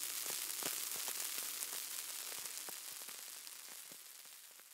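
Fizzing sound effect of carbonated bubbles: an even hiss dotted with small crackling pops, fading away gradually.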